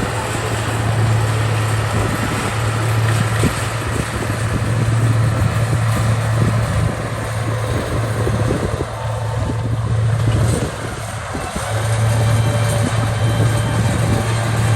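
Heavy diesel engine of earthmoving equipment running loud and steady, its low drone easing off twice for a second or so in the second half.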